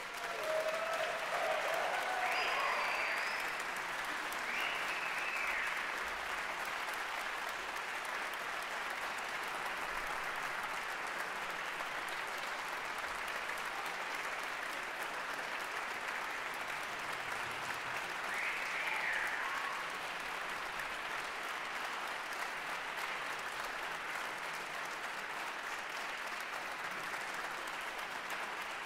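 Audience in a concert hall applauding, breaking out abruptly from silence and carrying on steadily. A few shouts and a whistle rise above the clapping in the first seconds and once more about two-thirds of the way through.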